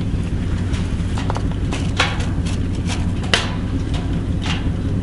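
A steady low hum, with a few sharp clicks and knocks about two seconds in, a second later, and near the end.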